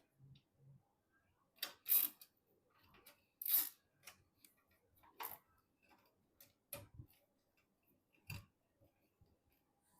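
Scattered clicks, taps and knocks of computer hardware being handled during assembly, about half a dozen sharp ones with the loudest around two seconds and three and a half seconds in.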